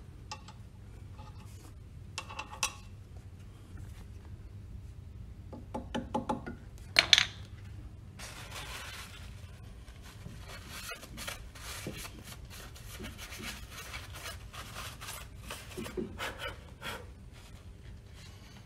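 Hand work on a pump's steel split coupling: a few light clicks, then a cluster of sharper metal knocks and clinks about six to seven seconds in, the loudest sounds, followed by a long stretch of cloth rubbing as a coupling half is wiped clean.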